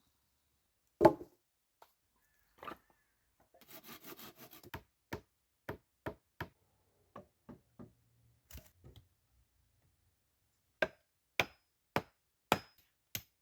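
Wood being struck: a loud knock, a short rasping scrape, then a series of sharp knocks, ending in a quick run of strikes about two a second.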